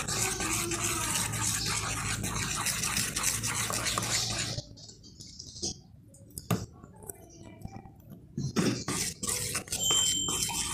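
A steel spoon stirring thick, wet gram-flour batter in a steel bowl, with a dense scraping, squelching sound and small clicks. About halfway through it drops much quieter, leaving only occasional clinks of the spoon against the bowl.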